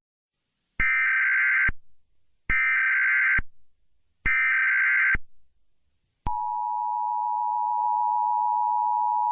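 Emergency Alert System broadcast opening: three short bursts of warbling header data tones, about a second each, then about six seconds in the steady two-tone EAS attention signal begins and holds.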